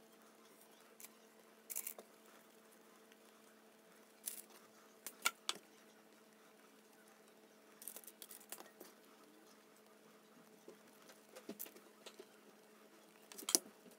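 Hands shaping soft yeast dough into balls and setting them down on a parchment-lined baking tray: faint, scattered soft pats and clicks over a low steady hum.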